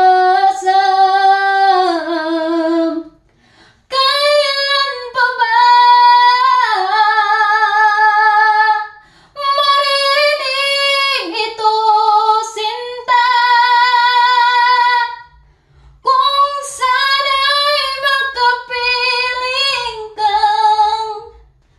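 A woman singing a Tagalog love song solo, a cappella, in long held notes. The song runs in four sung phrases with short breaks between them.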